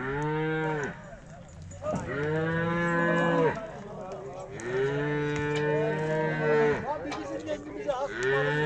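Young white-faced Hereford-type cattle in a pen mooing: four long moos one after another, each lasting one to two seconds, the third the longest.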